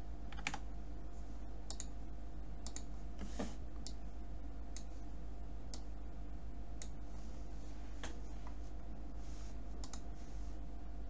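Scattered clicks from a computer mouse and keyboard, one every second or two, over a steady low electrical hum.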